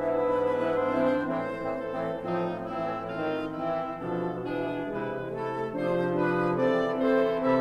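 Wind sextet of flute, oboe, clarinet, two French horns and bassoon playing Romantic chamber music in held chords, with the horns prominent; the harmony shifts about halfway through.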